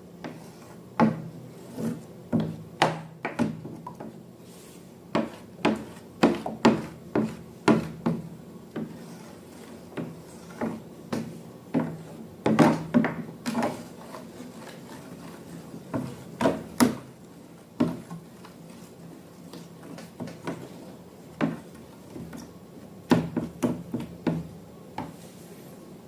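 Slime being worked by hand or with a tool: irregular sticky clicks, taps and scrapes, some in quick clusters.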